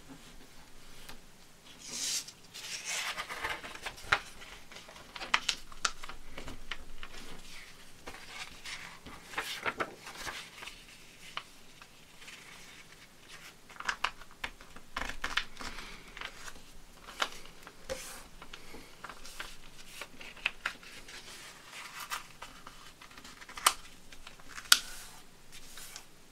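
A sheet of graph paper being folded by hand: paper sliding, rustling and crinkling, with crisp clicks here and there and the loudest clicks near the end.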